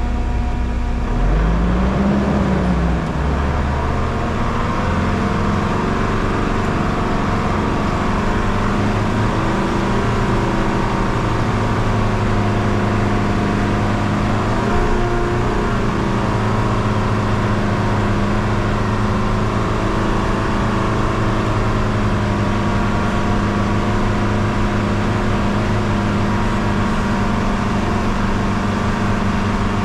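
Mitsubishi Challenger 4WD's engine running steadily while driving uphill on a dirt track, the revs rising and falling about two seconds in and then holding with small changes.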